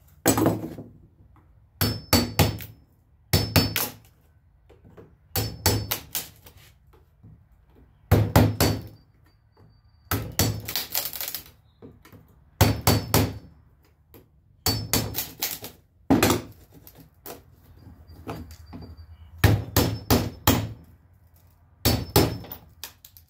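Hammer tapping a flat metal blade, driving it under the glazing trim around a door's glass pane to pop the trim loose: repeated sharp strikes, often in pairs, every second or two.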